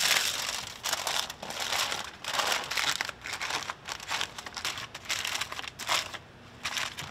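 Aluminium foil crinkling in repeated bursts as it is folded and crimped by hand into a sealed packet, easing off briefly near the end.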